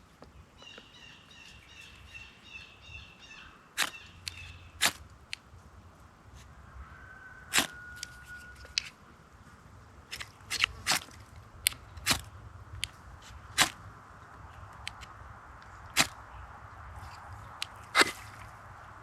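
A knife spine scraping a small ferrocerium rod to throw sparks onto wood shavings for a fire, in about a dozen short, sharp strikes at irregular intervals. A bird chirps in a quick repeated series during the first few seconds.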